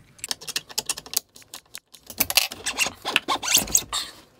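Handling noise from a CNC router spindle and its cable: a quick run of light clicks and knocks, then, about two seconds in, roughly two seconds of scraping and rubbing as the metal spindle is taken out of its plywood mount.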